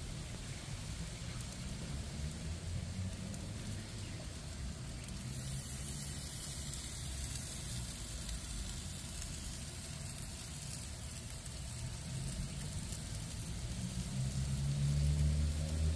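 Whole snapper sizzling on a grill's cast-iron grates: a steady hiss with faint crackles. A low rumble grows louder near the end.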